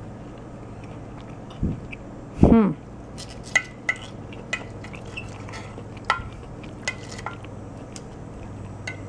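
Knife and fork clicking and scraping against a glass baking dish while cutting baked lamb shank: a dull thump early on, then a run of short sharp clinks. A short falling vocal sound, the loudest thing, comes about two and a half seconds in.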